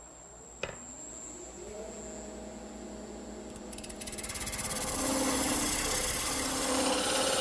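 A wood lathe is switched on with a click and its motor whines up to speed. About four seconds in, a parting tool starts scraping into the spinning bat blank, cutting a depth guide for the knob, and the scraping grows louder.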